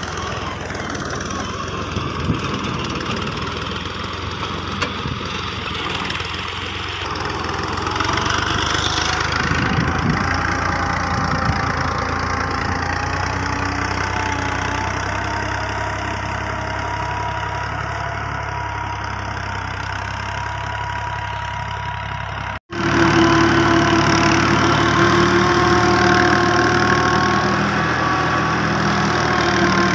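Farm tractor engine running steadily under load as it pulls a tine cultivator through cotton rows to weed them. About two-thirds through, the sound cuts out for an instant and comes back louder.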